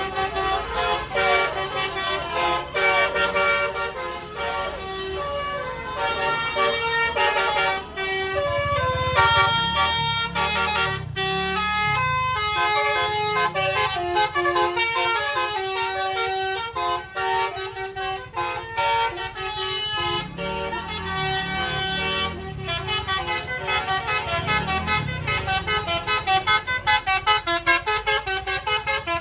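Tour bus 'basuri' telolet musical air horn playing a fast melody of changing notes, with low sweeping tones underneath at times.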